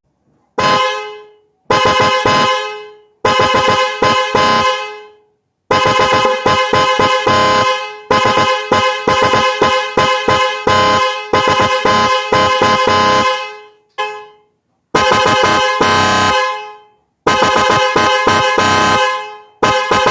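Hella Super Chrome twin-tone trumpet car horn sounding in a series of about ten blasts: some short taps, some held for one to two seconds, with gaps between. Its two pitches sound together as one chord.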